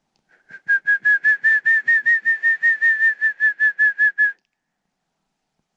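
Mountain quail call: a rapid series of about twenty short whistled notes, roughly five a second, rising slightly in pitch and then easing back down before stopping abruptly.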